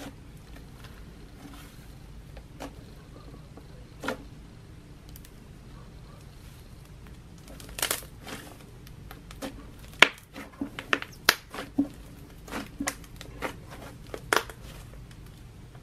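Thick white butter slime being kneaded and squeezed by hand, giving short sharp pops and crackles: a few scattered ones, then a quick run of them in the second half.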